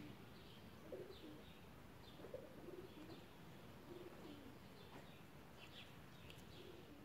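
Faint pigeon cooing, repeated about once a second, with small birds chirping now and then.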